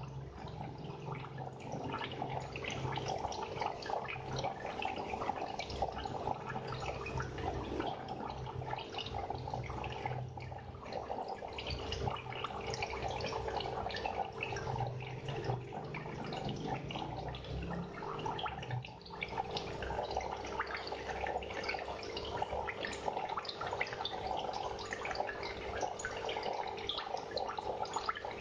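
Aquarium water trickling and bubbling steadily, a dense fine crackle of splashing and popping, over a steady hum.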